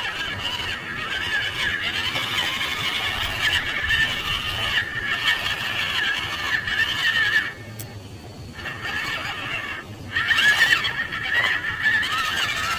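Electric motor and gearbox of a small RC Unimog crawler truck whining under load as it climbs over rock and dirt, the pitch wavering with throttle. It eases off twice past the middle, then picks up again loudest just after.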